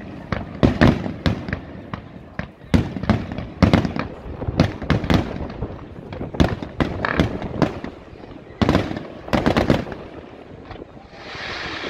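Fireworks display: an irregular run of sharp bangs and crackling shell bursts, several close together at times. Near the end the bangs stop and a steady hiss rises.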